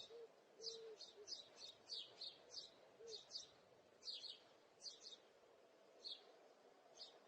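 Faint, short, high-pitched bird chirps repeating irregularly, two or three a second, over a low steady background hum.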